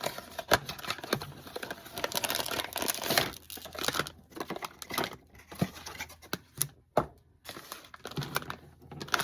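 Packaging of a blind-box toy being torn open and crinkled by hand: dense, irregular crackling and rustling that thins out about halfway through, with brief pauses.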